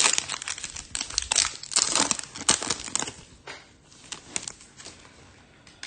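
Trading card pack wrapper crinkling and tearing as the pack is opened and handled: a dense run of sharp crackles for about three seconds, then scattered ones.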